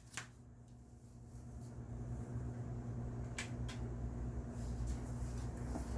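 Electric fan motor humming, growing louder over the first couple of seconds as it spins up and then running steadily, with a few light clicks.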